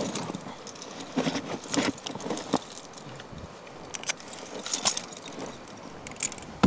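Metal climbing hardware, carabiners and camming devices racked on a harness, clinking and jangling in irregular bursts as the climber handles and shifts his gear on the wall.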